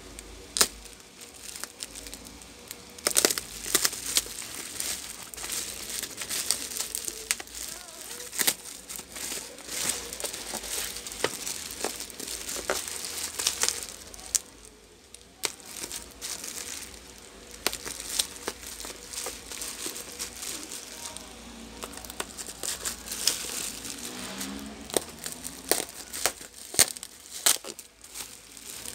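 Bubble wrap crinkling and crackling as hands handle and unwrap a package, with many irregular sharp crackles and a short pause about fifteen seconds in.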